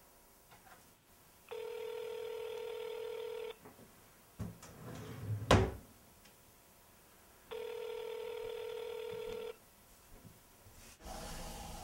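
Telephone ringing in the North American cadence: two steady two-second rings, four seconds of quiet between them. Between the rings comes a short clatter ending in a sharp knock.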